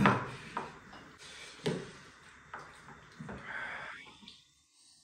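Scattered short eating noises: noodles being slurped and chopsticks knocking against ceramic bowls, about five separate sounds. The sound drops out completely for a moment about four seconds in.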